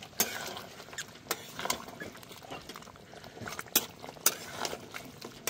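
A long flat metal spatula stirring thick mutton curry in a metal kadai, with irregular scrapes and clinks of the spatula against the pan.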